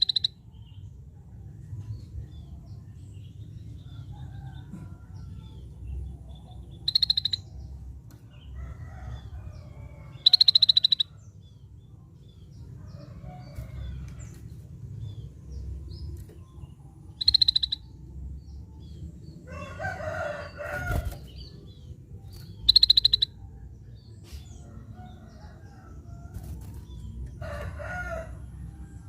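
Scaly-breasted bulbul (cucak bersisik) calling in short, loud, high notes, five of them a few seconds apart. Two rougher, lower calls come in about two-thirds of the way through and near the end, over a steady low hum.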